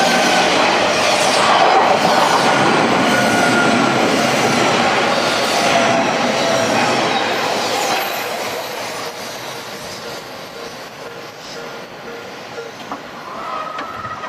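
Odakyu 8000 series electric train passing over a level crossing: loud rush of wheels on rail with clacking and a thin squeal from the wheels for about the first eight seconds, then fading away as the train moves off.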